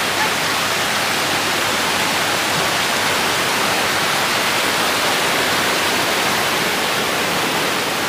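Mountain stream rushing over rocks: a steady, even rush of white water that does not change.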